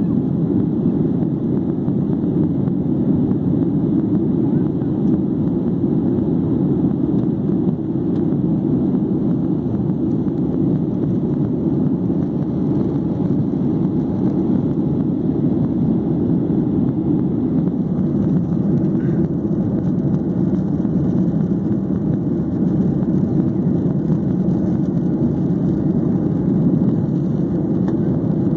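Steady low rush of jet engine and airflow noise heard inside a Boeing 737's cabin as it climbs out after takeoff.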